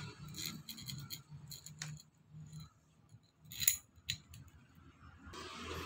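Steel motorcycle cam chain clinking and rattling as it is handled and lifted. A scatter of light metallic clinks, the loudest cluster about two-thirds of the way through.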